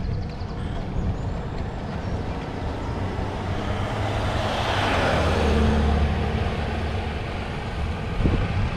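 A motor vehicle passes on the road, its engine and tyre noise swelling to a peak about five seconds in and then fading, over a steady low rumble.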